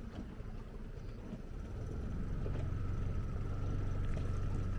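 Small dinghy outboard motor running slowly, a steady low hum with a faint whine above it, getting somewhat louder about two seconds in.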